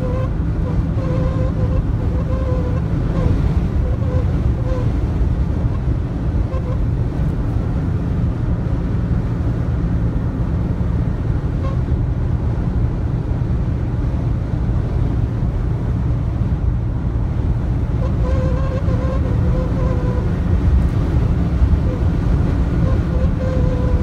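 Wind howling at the upper left corner of a 2016 Toyota Tacoma's driver-side door at highway speed. It is a wavering whistle over the steady rumble of road and wind noise in the cab. The whistle is strong at first, fades out after about five seconds, and comes back strongly about eighteen seconds in. The owner takes it for a wind-noise defect, since it happens all the time and not only on windy days.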